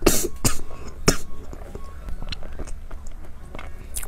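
A woman coughing, choked on the cocoa powder dusting a cake: a few sharp coughs in the first second or so, then small mouth and spoon sounds, with a metal spoon scooping into the cake near the end.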